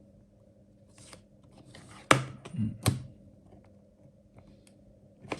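Clicks and clatter of a plastic precision screwdriver kit being handled as a part is taken out. There are two sharp, loud clicks about two and three seconds in, and another near the end.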